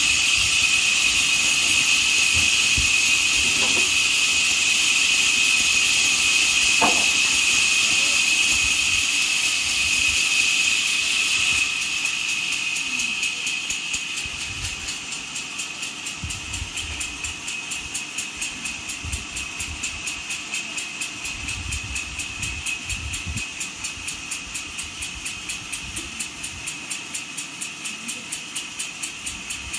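Sawmill machinery running with a steady high whine. About twelve seconds in the whine drops away and gives way to a quieter, even pulsing of about three beats a second. A few dull knocks come from the log being levered over.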